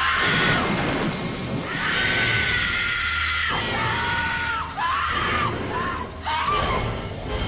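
Long, high screams, several in a row with short breaks, over music.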